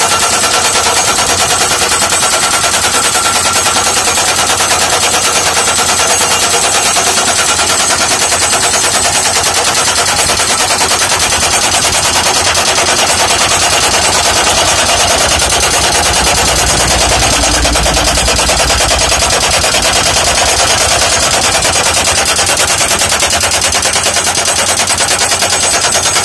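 Crash-barrier post-driving machine's hammer pounding a steel guardrail post into the ground: a loud, rapid, unbroken volley of metal-on-metal blows.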